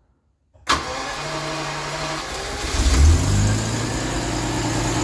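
Jaguar XJS 5.3-litre V12 cranked on the starter from about a second in, catching after a couple of seconds with a brief flare of revs, then settling into a steady idle. The engine starts cleanly and runs smoothly, the sign that the ignition and sensor faults behind its cutting out and rough running are cured.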